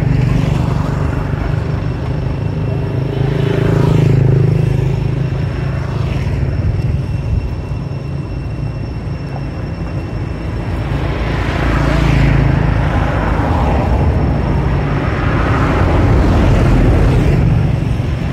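Road traffic: passing vehicles' engine noise swelling and fading about three times over a steady low rumble.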